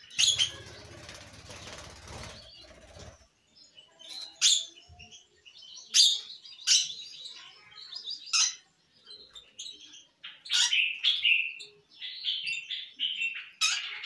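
Pet lovebirds chirping in short, sharp calls, then chattering steadily near the end. A flurry of wing-flapping comes in the first few seconds.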